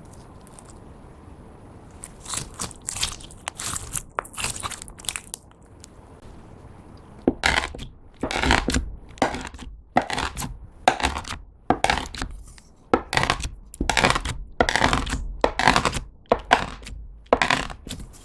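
Clear slime tinted with lipstick and lip gloss being squished and pressed by hand, crackling and popping. Softer scattered crackles come first, then louder, regular squishes with small pops, about two a second, from about seven seconds in.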